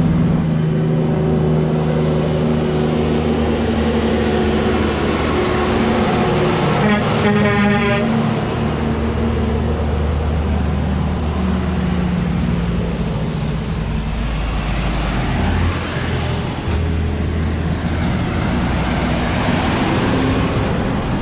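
Diesel tractor-trailer trucks running past at close range, their engines steady over road noise. A horn sounds once, for about a second and a half, some seven seconds in.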